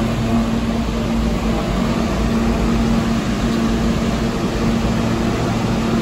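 New York City subway train: a steady low rumble with a constant hum.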